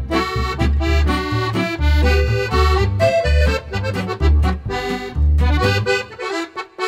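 Upbeat accordion-led music over a pulsing bass line.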